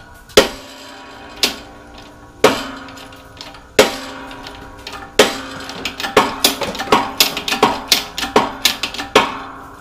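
Metallic clanks with a short ring as a shop press is pumped to push a worn wheel bearing out of a Honda Civic steering knuckle. At first they come singly about a second apart, then quicker, about three or four a second, in the last few seconds.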